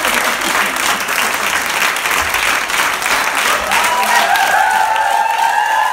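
A large crowd of dancers applauding steadily with many hands. From about two-thirds of the way through, voices join in with a long cheering whoop.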